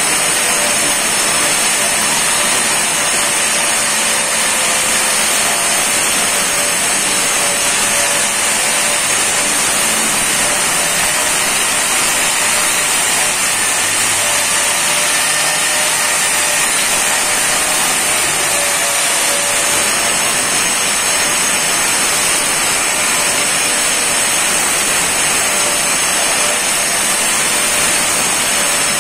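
Electric angle grinder running continuously with its disc against the edge of a granite slab, a loud steady grinding with a high whine that thins out in the middle and returns near the end.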